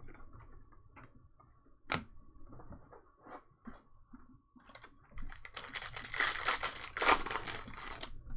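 A plastic or foil wrapper being torn open and crinkled for about three seconds near the end, after scattered light clicks and one sharp tap about two seconds in.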